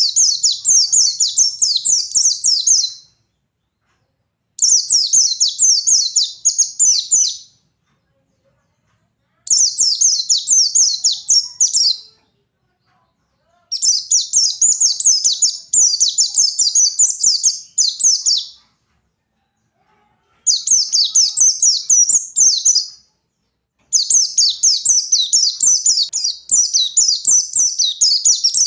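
A white-eye (pleci) singing a rapid, high-pitched twittering song in bursts of about three to five seconds, six bouts with short silent pauses between them.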